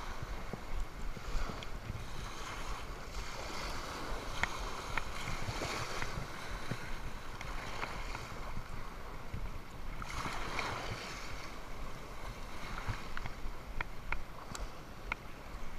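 Small waves washing in and out on a sandy shore, the wash swelling and fading every few seconds, with a low wind rumble on the microphone and a few faint scattered clicks.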